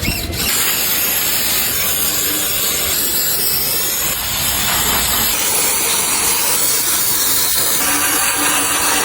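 A loud, steady hiss, like escaping air or a spray, whose tone shifts about five seconds in.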